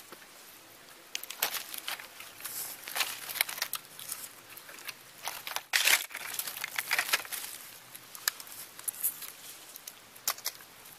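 Dry leaves and grass rustling and crackling in short irregular bursts as vervet monkeys move about close to the camera on the ground, loudest about six seconds in.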